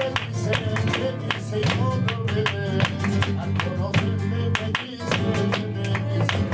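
Flamenco guitar playing Sevillanas between sung verses, with sharp percussive strikes keeping a steady beat, a few to the second.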